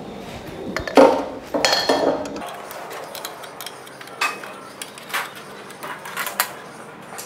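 A 13 mm wrench working the bolt on a motorcycle's rear drum-brake rod: scattered metallic clinks and scrapes of steel tool on bolt and brake linkage, with a few sharper single clinks in the second half.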